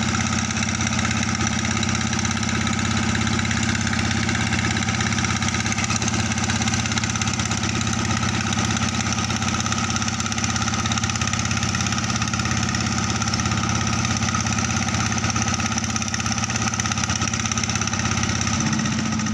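Engine of a river sand-suction pump running steadily at a constant speed, with a slight change in its pitch near the end.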